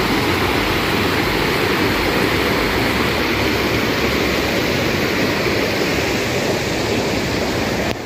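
River running high after rain, pouring over rock ledges and small cascades: a steady, loud rush of water.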